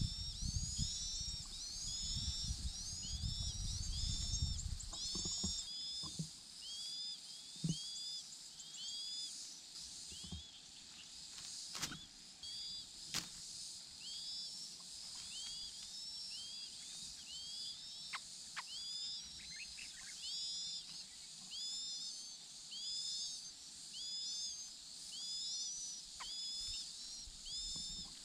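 Chinese hwamei chicks giving high, short begging chirps over and over, several overlapping each second. A low rumble fills the first few seconds, and two sharp clicks come about halfway through.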